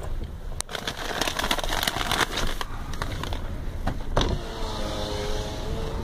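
Car cabin noise while driving slowly on a rain-soaked, flooded highway: a steady low rumble of engine and tyres. About a second in comes a stretch of crackly hiss from rain and road spray on the car. Over the last two seconds a held, pitched tone rings out.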